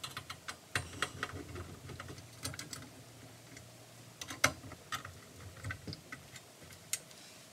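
Irregular small clicks and ticks of a hand screwdriver driving the securing screws into the plastic cover of a Myenergi Eddi unit, some in quick runs of several, the sharpest about half a second in and near the end.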